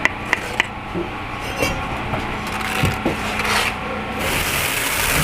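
Bricklaying work: three sharp clicks in the first second and a few knocks, then a scraping rasp near the end, as of a trowel working mortar against brick.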